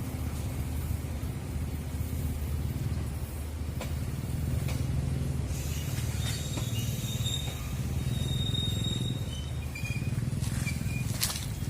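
Long Babaranjang coal train running by: a steady low diesel rumble with occasional knocks, and brief high-pitched tones in the second half.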